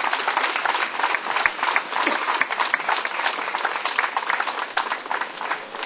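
Audience applauding, then dying down near the end.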